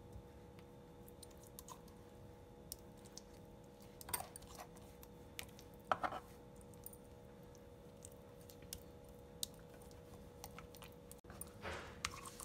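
Metal spoon spreading and pressing thick, wet masala paste over a whole fish on a bamboo cutting board: soft squishy scrapes and a few light clicks of the spoon, the clearest about four and six seconds in, over a faint steady hum.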